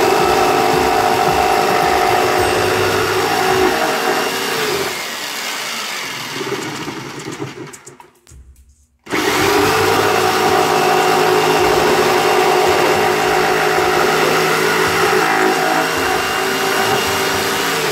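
Black+Decker jigsaw cutting a poplar dowel: the motor runs with a steady whine, winds down about four to five seconds in and goes quiet for a moment, then starts up again about nine seconds in and runs on.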